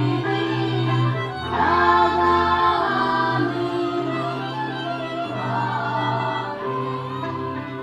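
Live folk band music with fiddles over steady bass notes, and voices singing a song over it, loudest about two seconds in.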